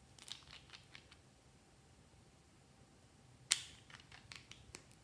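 Small clicks and taps from a glass nail polish bottle and its plastic brush cap being handled, with one sharp click about three and a half seconds in followed by a few lighter ones.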